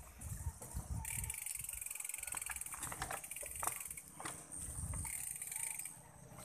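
Bicycle rear freehub ticking rapidly as the rider coasts, starting about a second in, with a few sharper mechanical clicks and low wind and road rumble from riding.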